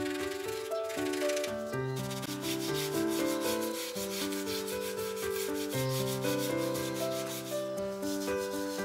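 Hand brush scrubbing grime from between the cooling fins of a Kawasaki Z750FX-II cylinder block in quick repeated strokes, over background music.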